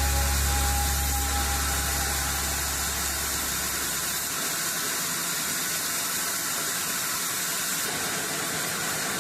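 Sawmill machinery running with a steady hiss; its low motor hum dies away about four seconds in.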